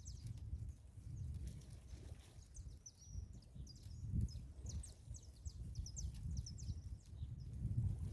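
Birds chirping in quick, repeated clusters of short high calls, over a gusty low rumble of wind on the microphone.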